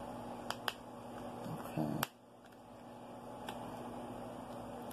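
A few small, sharp clicks and taps from a makeup palette's packaging being handled as it is worked open, the loudest about two seconds in, over a faint steady hum.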